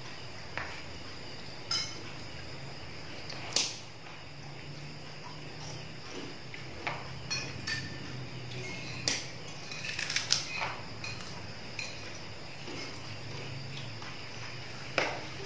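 Spoons clinking and scraping against plates and bowls during a meal, a scattering of short sharp clinks, several close together about ten seconds in, over a faint steady hum.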